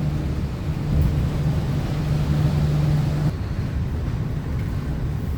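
Mercedes-Benz OF 1721 bus differential droning loudly, a steady whine over low engine and road rumble that stops about three seconds in.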